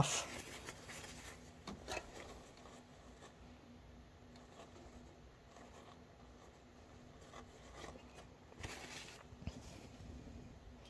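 Faint rustling and light handling clicks of a paper towel and hands working inside an inkjet printer, with a slightly louder rustle near the start and again near the end.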